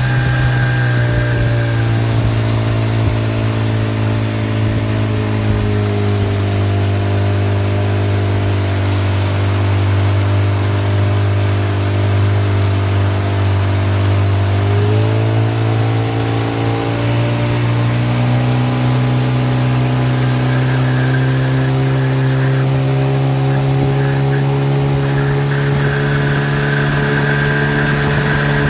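Engine running steadily with a high-pitched whistle over it. The engine speed sags slowly, then picks up about halfway through; the whistle fades as the speed drops and comes back near the end.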